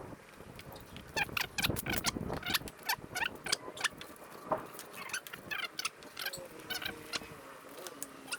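Bird calls: a dense run of short chirping calls, some rising and falling in pitch.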